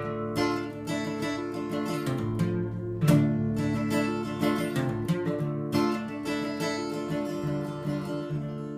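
Acoustic guitar strumming an instrumental outro of an Americana folk song, with chords ringing between strokes.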